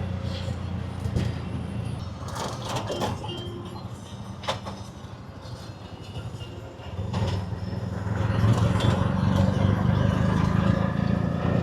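Engine of a small local taxi running while riding along, easing off in the middle and pulling harder again from about seven seconds in, with a few knocks and rattles around three to four seconds in.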